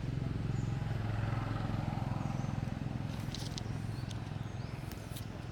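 A steady low engine hum, a little louder in the first half, with a few sharp clicks in the second half.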